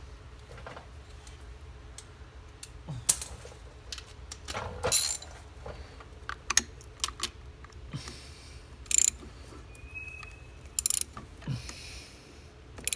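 Metal hand tools clinking and clanking on an ATV engine as it is being reassembled: a series of sharp clicks and knocks at irregular intervals, with one brief high squeak near the end.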